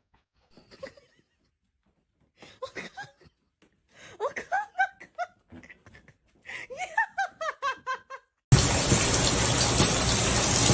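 A person laughing in several runs of quick giggling bursts, starting about two seconds in. Near the end a loud, steady noise cuts in suddenly.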